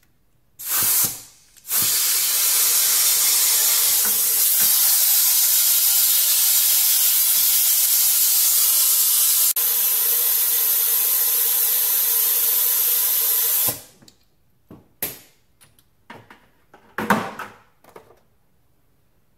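Compressed-air venturi of an AirLift coolant vacuum-fill tool hissing as it pulls a vacuum on the cooling system to draw out trapped air. A short blast comes first, then a steady hiss that cuts off suddenly after about twelve seconds. A few clicks and knocks follow.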